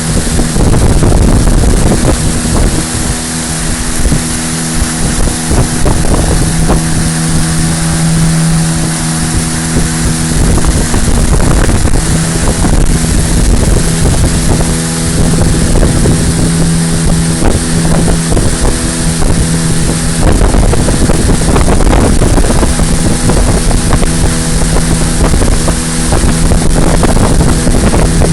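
Motorboat engine running steadily at one constant pitch, with wind buffeting the microphone.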